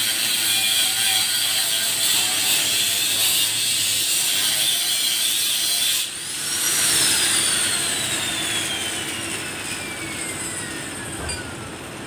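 Handheld angle grinder grinding into the sheet-metal fender of a bus, a steady harsh grinding. About six seconds in it is switched off, and its whine falls steadily over the next five seconds as the disc spins down.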